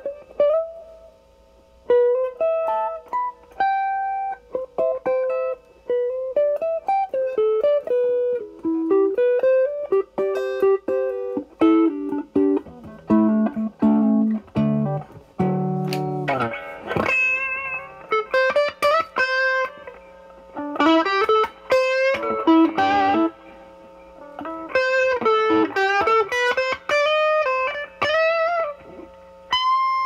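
Stratocaster with single-coil Alnico pickups played through a 1986 ProCo Rat 2 with the LM308N chip into a Marshall Valvestate's clean channel. The distortion is set around 11 to 12 o'clock and the guitar's volume is rolled back, so the tone cleans up to a lightly driven sound. Mostly single-note melodic lines, with fuller, lower chords about halfway through.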